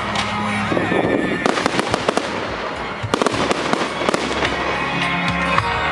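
Fireworks going off in a dense, rapid series of cracks and bangs, with many sharp reports close together.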